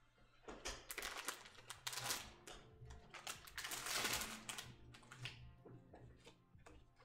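A trading card being handled and slid into a clear plastic sleeve and toploader: plastic scraping and rustling with small clicks, in uneven strokes, the longest and loudest about four seconds in.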